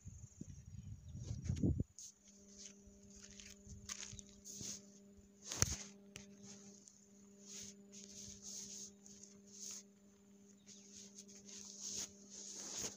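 Phone microphone rubbing and scraping against cloth and fingers as it is handled: a run of short, irregular scratchy rustles, the loudest a little before the middle. Under them runs a faint steady hum. A low rumble like wind on the microphone fills the first two seconds.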